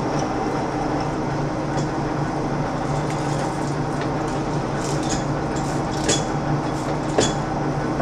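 Metal lathe running steadily while a half-inch drill bit in the tailstock bores a pilot hole through a spinning steel puck under flowing coolant. A few short clinks come about five, six and seven seconds in.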